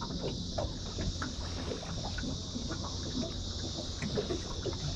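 Water lapping and knocking lightly against a small aluminium boat's hull, over a steady high drone of insects.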